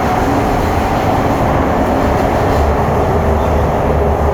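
C151 MRT train heard from inside a car while running between stations: a steady loud rumble of wheels and running gear. A motor whine sits higher early on and lower near the end.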